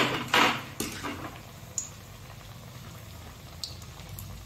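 Besan vadas deep-frying in hot oil in a kadhai: a steady bubbling sizzle, with a few sharp knocks and crackles in the first second or so.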